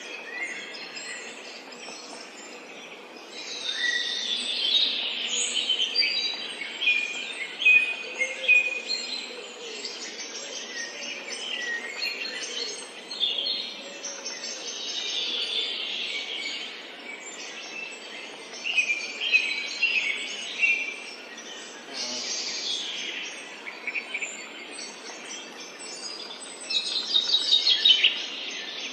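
Songbirds chirping and trilling, many short high calls overlapping in busy clusters, over a steady faint background hiss.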